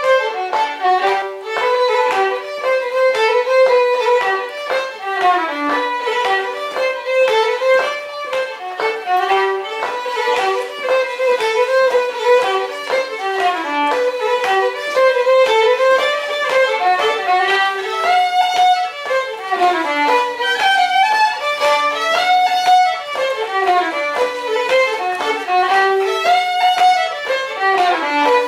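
Instrumental folk dance music: a tune of quick, evenly paced notes over a steady beat.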